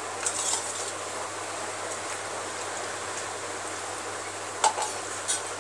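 Steady background hiss with a few short clicks and taps, the sound of fingers mixing rice on a steel plate.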